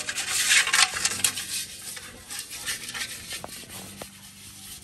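Rough scraping and rubbing on a metal cooking pot, a pot being scoured. The hardest scraping comes in the first second or so, followed by lighter, uneven rubbing strokes.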